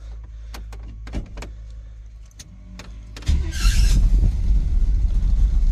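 A steady low hum and a few sharp clicks as the steering-column ignition is worked with a tool, then about three seconds in the 1987 GMC V-Series pickup's gasoline engine starts with a brief burst and runs loudly and unevenly. The owner says the engine is misfiring badly.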